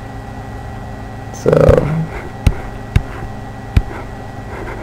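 A few sharp, short clicks of a stylus tapping on a drawing tablet while writing, over a steady electrical hum, with a brief hummed "mm" from the narrator about a second and a half in.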